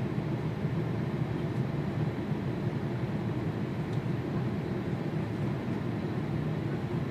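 Steady low roar of an airliner cabin in cruise flight: engine and airflow noise heard from inside the aircraft.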